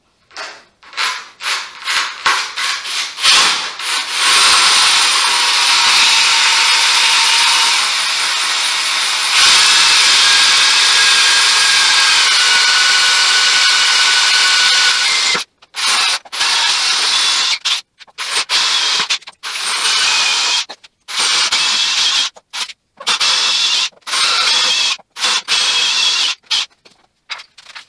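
A handheld power tool runs steadily for about eleven seconds, its pitch stepping a couple of times, then is run in a dozen short bursts. Quick clicks and scrapes come before it starts.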